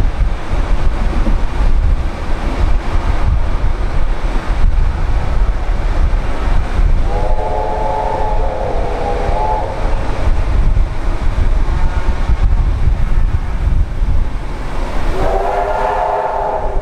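Steam train carriage running along the track with a steady low rumble. The locomotive's steam whistle sounds a steady chord twice: for about two and a half seconds around seven seconds in, then again near the end.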